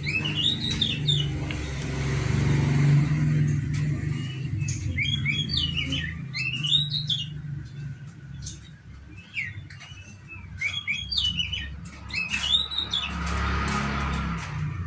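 Oriental magpie-robin giving short, quick whistled phrases that rise and fall, in repeated clusters. Under it runs a steady low hum that swells into a louder rumble twice.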